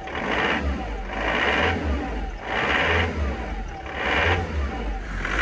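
Ford Transit truck's engine running, with a surge that comes and goes about once a second.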